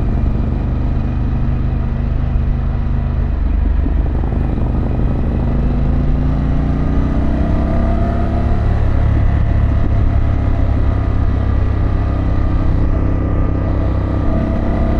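2024 Harley-Davidson Pan America's Revolution Max 1250 V-twin running under way through an aftermarket exhaust. The engine note changes about three and a half seconds in, climbs in pitch as the bike accelerates over the next few seconds, then holds steady.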